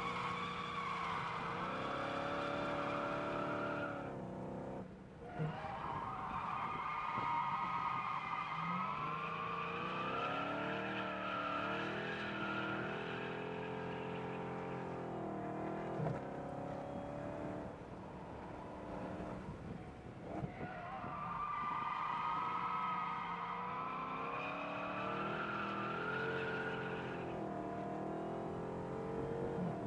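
Dodge Charger Hellcat's supercharged 6.2-litre V8 heard from inside the cabin on a track lap. The engine note climbs and falls with the throttle. It drops away sharply about five seconds in and again around twenty seconds, then climbs back as the car accelerates.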